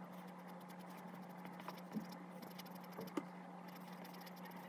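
Soft charcoal pencil making short strokes on paper: faint scratching with a few light ticks about two and three seconds in, over a steady low hum.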